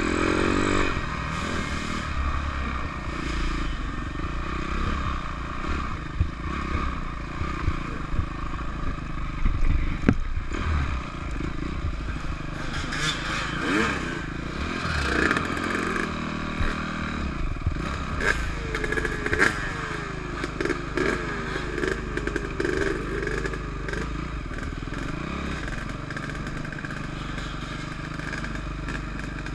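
Off-road dirt bike engine running on a rough woodland trail, revving up and down as the throttle is worked, with scattered clattering knocks from the bike. It settles to steadier, slightly quieter running near the end.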